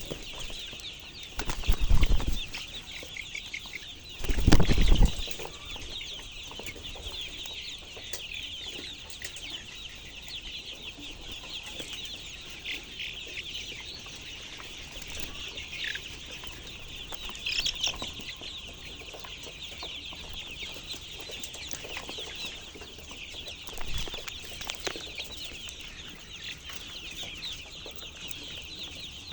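A flock of chickens clucking and chirping without pause. There are two loud thumps in the first five seconds and a smaller one near the end.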